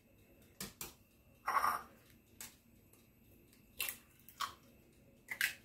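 Raw eggs sliding out of a glass bowl into a glass blender jug with a short wet plop, then a series of light taps and cracks as eggs are knocked and broken against the rim of a glass bowl.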